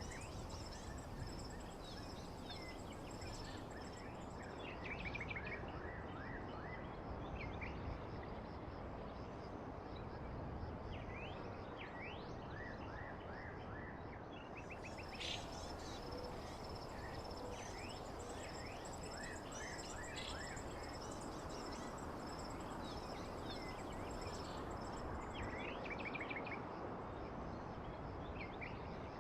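Recorded nature ambience: birds chirping in short repeated trills and insects with a pulsing high-pitched buzz, over a steady low hiss.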